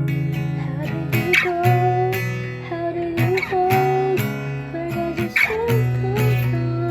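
Acoustic guitar strummed in a steady rhythm, about two strokes a second, with a voice holding long wordless notes over it that waver and bend.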